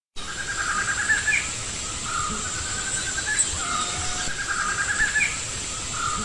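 Forest ambience of birds trilling and chirping over a steady high insect whine, the same calls coming round again about every four seconds like a loop.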